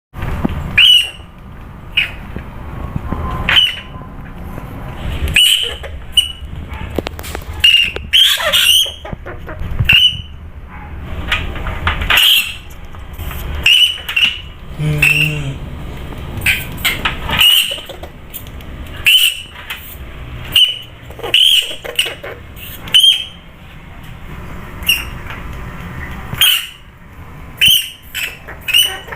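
A rodent squeaking over and over: short, sharp, high-pitched squeaks coming irregularly, roughly one every second.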